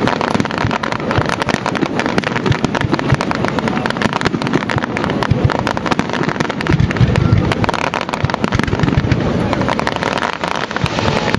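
Aerial fireworks bursting: a dense, rapid run of crackling pops and bangs, with a heavier low boom about seven seconds in.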